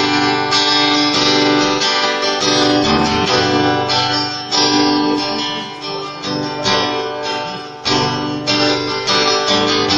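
Acoustic guitar strummed in a steady rhythm, with a held low note underneath: the instrumental intro of a worship song, before the singing comes in.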